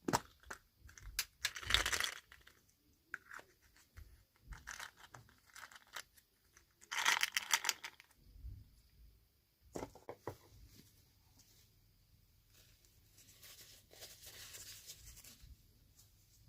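Toy packaging being torn open and handled: short bursts of tearing and crinkling, loudest about two seconds in and again around seven seconds in, with a softer rustle near the end.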